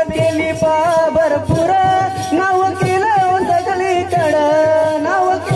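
Live balya-dance folk music: a long, held, ornamented melody line that bends in pitch, over a steady run of drum strokes.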